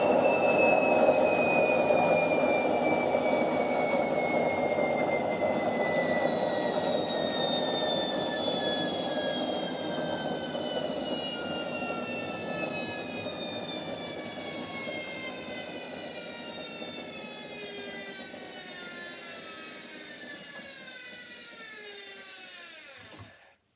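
Washing machine spinning down from its 1200 rpm spin cycle: a motor whine that falls steadily in pitch and fades as the drum slows, then cuts off near the end.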